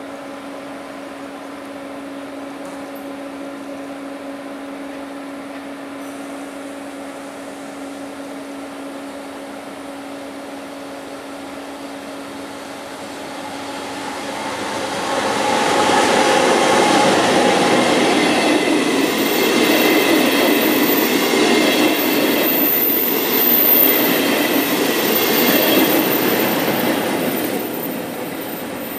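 FS E464 electric locomotive and coaches passing on the line. A steady hum at first gives way, about halfway through, to the loud noise of wheels running on the rails, with high squealing tones over it, easing off near the end.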